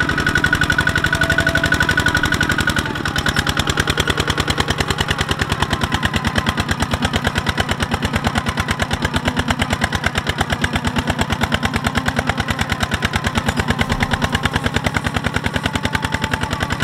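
Two-wheel walking tractor's single-cylinder diesel engine running with rapid, even chugging. A high whine heard over the first three seconds stops abruptly, and the chugging carries on steadily.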